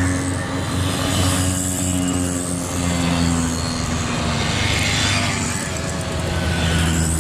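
Several classic two-stroke mopeds riding past one after another, their engines buzzing steadily at cruising speed.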